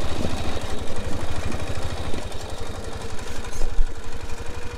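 Small gasoline engine of a portable water pump running steadily, pumping creek water. A single sharp knock sounds near the end.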